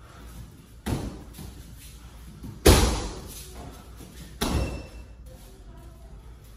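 Kicks landing on a handheld kick shield: three heavy thuds about two seconds apart, the middle one the loudest, with a short echo after it.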